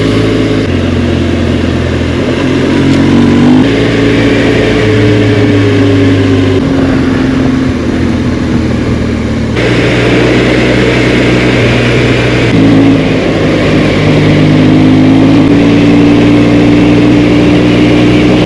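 Dual-sport motorcycle engine running under way, its note holding steady for a few seconds at a time and then shifting to a new pitch, several times.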